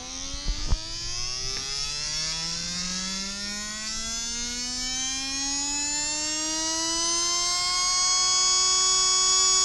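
Tamiya Super Stock BZ brushed motor spinning up with no load at 6 volts on a motor dyno, its whine rising steadily in pitch for about eight seconds and then holding steady at around 22,000 RPM. A couple of short knocks about half a second in.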